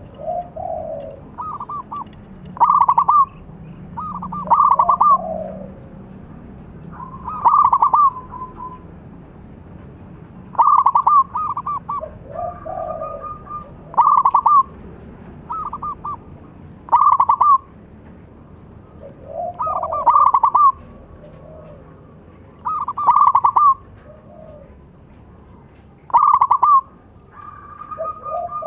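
Zebra dove (perkutut) singing its staccato cooing song: short phrases of rapid coo notes with a lower sliding coo, repeated about every three seconds.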